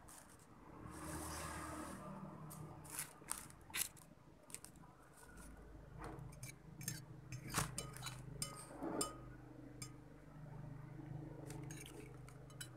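A person eating instant noodles from a plate: scattered light clinks and scrapes of a utensil against the dish, with slurping of the noodles.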